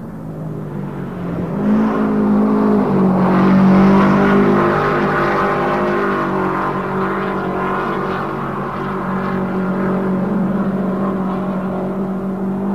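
Engines of a pack of racing sedans running hard together at fairly steady pitch. The sound swells to its loudest about four seconds in and then holds steady.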